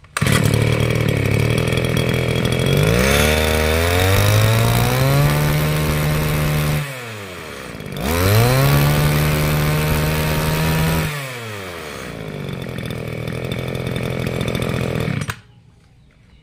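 Tanaka TBC brush cutter's 24 cc two-stroke engine starts at once and is revved up twice, rising to a high buzz and dropping back each time. It then runs more slowly and shuts off about a second before the end.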